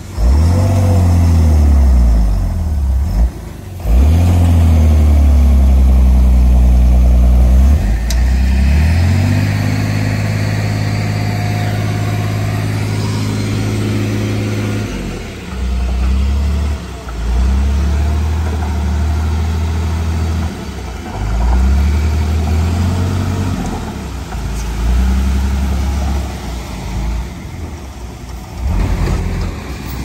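Heavy diesel engine of earthmoving machinery working under load, revving up and down so its pitch rises and falls again and again, with a few abrupt jumps in pitch.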